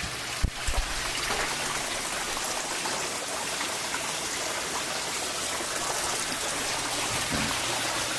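Steady running and trickling water from the greenhouse turtle-pond system, where a pump pushes water up through a gravel biofilter and it overflows back into the pond. There is one brief knock about half a second in.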